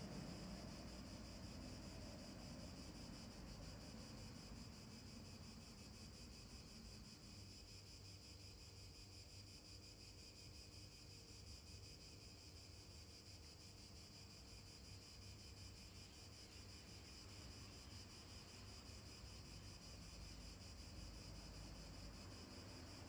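Near silence with a faint, steady high hiss and no distinct events.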